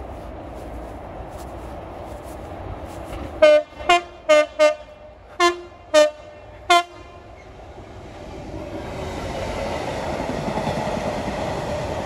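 Class 66 diesel locomotive 66112 sounding seven short horn blasts in quick succession, mixing high and low notes, about three and a half seconds in. Afterwards the locomotive's engine and train noise swell as it approaches and passes.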